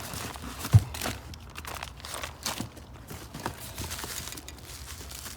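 Handling noise from car parts and their packaging: scattered rustling and clicking, with one sharp thump about a second in.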